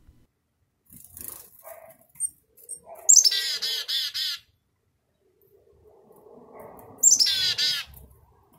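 Black-capped chickadees at their night roost calling twice, about four seconds apart. Each call is a very high opening note followed by a quick run of harsh, buzzy dee notes, the chick-a-dee call. A few faint scratchy sounds come before the first call.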